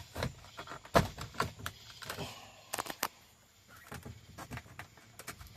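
Plastic clicks and knocks of a car stereo head unit being handled and pushed back into its dash slot, with a sharp knock about a second in and a quick cluster of clicks near three seconds.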